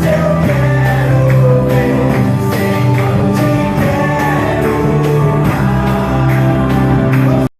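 Christian worship song with a steady beat and singing, cutting off suddenly near the end.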